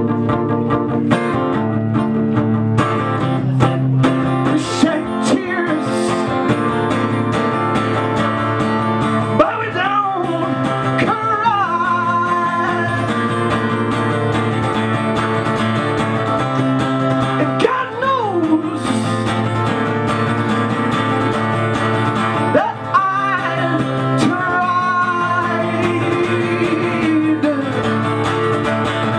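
Live solo performance: an acoustic guitar strummed in steady chords while a man sings, his voice sliding between notes in several phrases.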